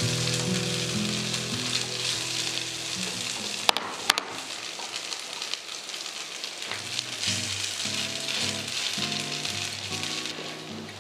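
Potato rösti frying in butter in a pan, a steady sizzle, with two sharp clicks near the middle.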